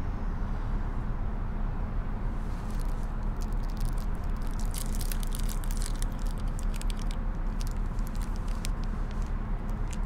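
Steady low rumble inside the cabin of a Ford car idling in stopped traffic, with light irregular clicks and crackles starting about two and a half seconds in.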